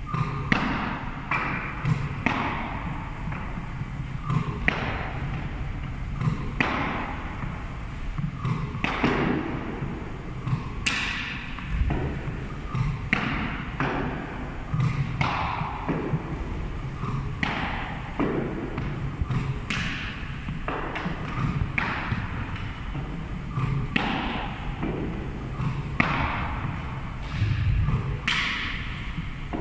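Tennis balls shot at a hockey goalie, striking his pads, stick and the wooden gym floor: sharp thuds and bounces about every two seconds, echoing in a large hall, with a low steady hum underneath.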